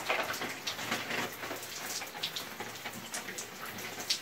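Shower water spraying and splashing on a person's body and the tiled floor, a steady hiss with irregular sharp splashes.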